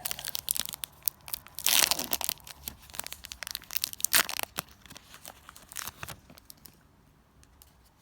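Foil wrapper of a Yu-Gi-Oh booster pack being torn open and crinkled by hand. The loudest tearing comes about two seconds in, with another sharp rip near four seconds, and the crinkling dies away toward the end.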